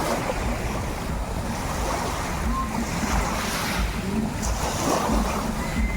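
Sea waves washing, with gusts of wind buffeting the microphone.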